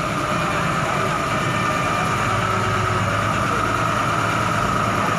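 Truck engine running steadily at low revs, with a steady high tone above it.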